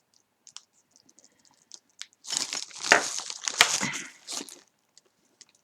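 Plastic packaging crinkling and rustling as a small item is handled and unwrapped, with a few faint ticks first and two sharper crackles in the middle.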